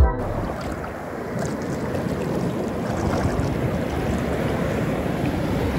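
Ocean surf washing and breaking in the shallows, a steady rush of water, with wind buffeting the microphone.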